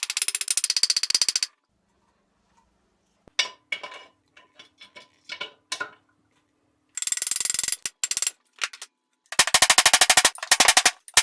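Tools and metal parts clicking during assembly of a milling machine's gearbox: three runs of fast, even clicking, with scattered single clicks and taps between them.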